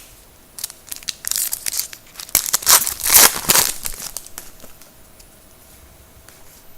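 A trading card pack's wrapper being torn open and crinkled, in a run of crackling rips that is loudest about three seconds in, then stops.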